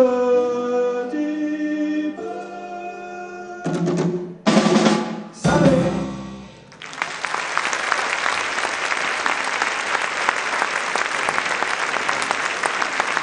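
Live salsa-jazz band finishing a song: a held sung and instrumental chord, then three loud full-band hits with drums. Audience applause starts about seven seconds in and carries on to the end.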